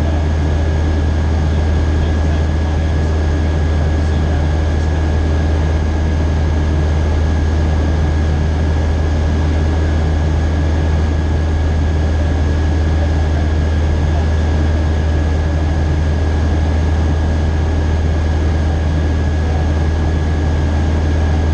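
Light single-engine propeller aircraft's engine and propeller running steadily in flight, heard from inside the cockpit as a loud, even low drone with a thin steady high tone above it.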